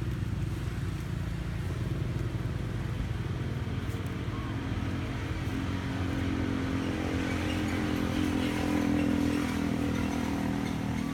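An engine running steadily, growing louder in the second half.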